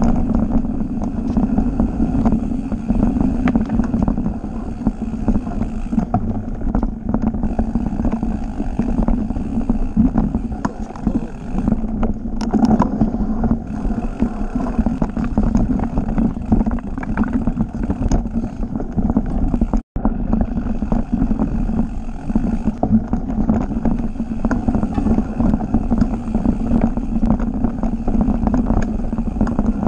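Mountain bike ridden fast along a forest dirt trail, heard through an on-board camera: a steady rumble of tyres and wind buffeting the microphone, with many small rattles and clicks as the bike goes over roots and bumps. The sound cuts out for an instant about twenty seconds in.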